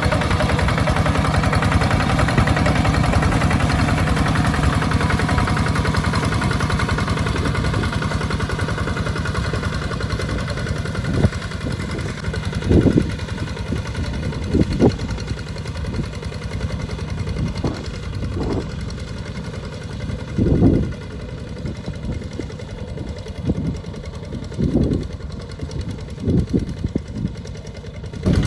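Tractor engine running steadily, with several short, louder bursts in the second half.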